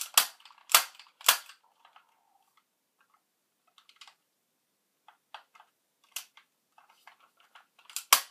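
Sharp mechanical snaps and clicks from a gas-blowback airsoft submachine gun being worked by hand: about four loud snaps in the first second and a half, fainter handling clicks through the middle, a loud snap past the middle and two more close together near the end.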